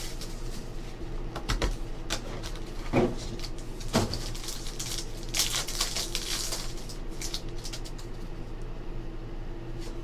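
Trading card pack in clear plastic wrapping being handled and torn open, the plastic crinkling densely about five to six seconds in, with a few sharp clicks from the cardboard box and cards before that. A steady low hum runs underneath.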